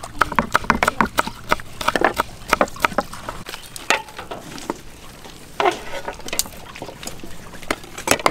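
Irregular sharp knocks and clicks, several a second, with brief snatches of voices between them.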